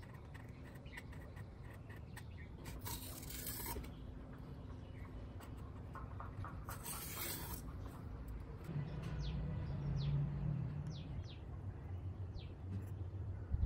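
Short scratchy strokes of a permanent marker and a craft knife rubbing and scraping on a thermocol (polystyrene foam) model fuselage, twice louder for about a second. A low hum comes in for a couple of seconds past the middle, and faint bird chirps follow toward the end.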